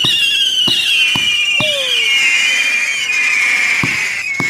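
Whistling fireworks: several shrill whistles sounding together and falling slowly in pitch for about five seconds, with about six sharp bangs from bursting shells mixed in.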